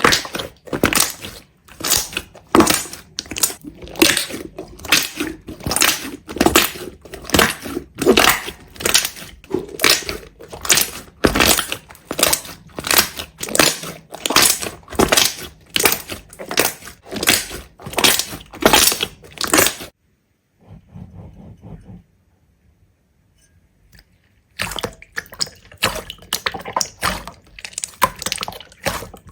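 Rhythmic crisp crunching strokes, about two a second, stopping at about two-thirds of the way through for a few seconds of near quiet, then starting again.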